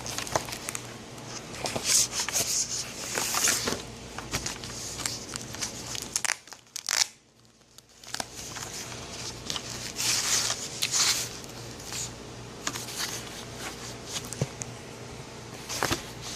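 Keyboard packaging crinkling and rustling as it is handled, in dense irregular crackles that break off into near silence for about a second and a half around six seconds in.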